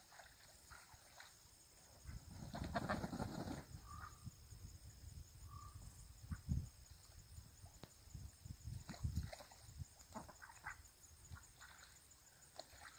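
Faint pond-side ambience with a couple of short, distant calls from a flock of Pekin ducks and Danish geese, about four and five and a half seconds in. A low rumble comes between two and four seconds in, and a few dull low thumps come later. A faint steady high hiss runs underneath.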